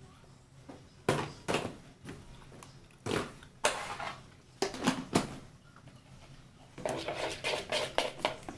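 A utensil knocking and clattering against a mixing bowl several times, then from about two-thirds in a fast run of scraping and clicking as slime mixture is stirred in the bowl.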